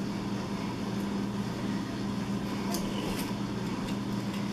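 Steady low electrical hum of a running room appliance, with a few faint light clicks as scissors are handled and set to the packing tape of a cardboard box.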